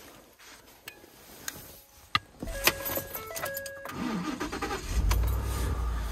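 Ford F-150 engine started off a portable jump-starter pack on a battery run flat by a light bar: the engine turns over and catches about four to five seconds in, then runs steadily. A few clicks and some short electronic tones come before it.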